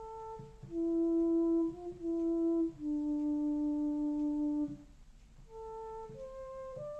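Behringer Crave analog monosynth with a sawtooth oscillator and keyboard-tracked filter, playing a slow flute-like line of single held notes with LFO vibrato on the pitch. It breaks off for about a second near the middle, then the notes resume, and soft low thumps mark the start of each note.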